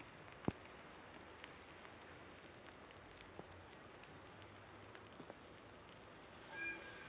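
Faint outdoor ambience: a steady low hiss with scattered light ticks, a single sharp click about half a second in, and a brief pitched chirp near the end.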